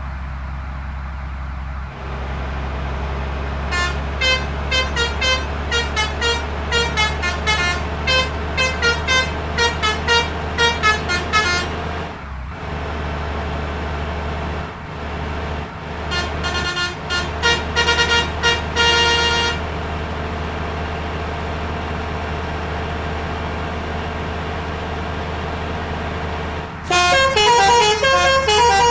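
Indonesian "telolet" bus horn, a multi-tone musical horn, playing quick runs of notes in three bursts: a few seconds in, briefly past the middle, and again near the end. A steady low engine drone runs underneath.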